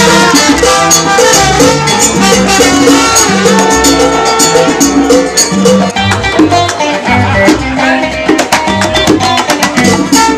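Salsa music with hand drums keeping the rhythm.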